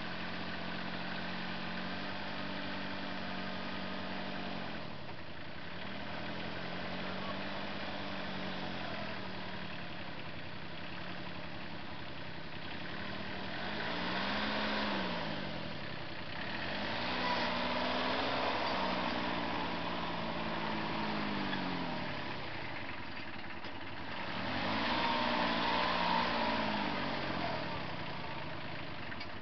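A vehicle engine running and revving up and down several times, its pitch rising and falling over a few seconds each time, as it drags the chicken coop. It grows louder and rougher around the middle and again near the end.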